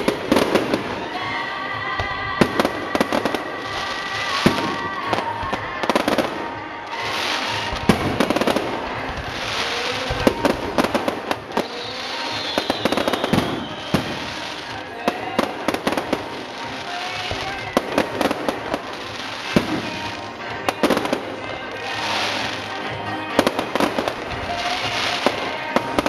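Fireworks display: aerial shells going off in quick succession, many sharp bangs one after another.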